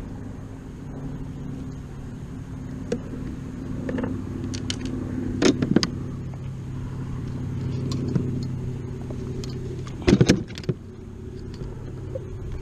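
Steady low hum of a motor running nearby, swelling about halfway through and easing off again, with a few scattered clicks and knocks.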